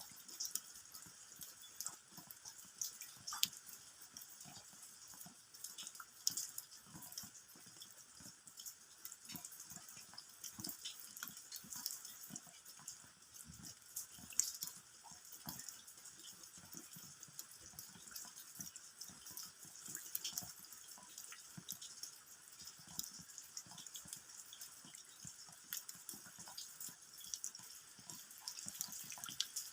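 Rain falling onto the ground: a steady hiss with many separate drops striking at irregular moments.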